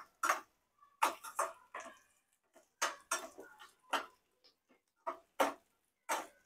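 Slotted metal spatula scraping and knocking against an aluminium frying pan while stirring sliced onions in oil: about a dozen short, irregular strokes with brief gaps between them.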